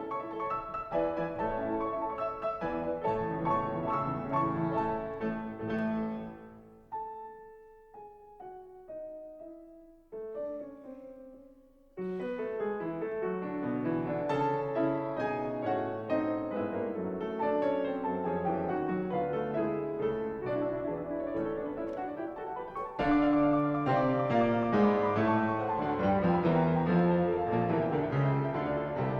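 Background piano music: a full passage that thins to a few single notes about seven seconds in, fills out again about five seconds later, and gets louder near the end.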